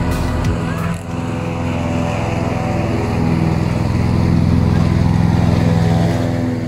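Husqvarna TC238T ride-on lawn tractor engine running steadily while mowing grass. It gets louder as the tractor passes close by.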